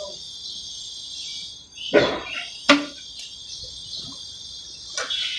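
Steady high-pitched insect chirring, with two sharp knocks about two seconds in and another shortly before the end.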